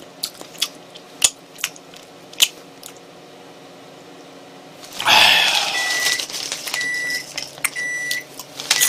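Wet smacking and sucking clicks as snack seasoning powder is licked off fingers. About five seconds in, a loud rustle of the snack bag starts, and over it a microwave oven beeps four times, about a second apart, to signal the end of its heating cycle.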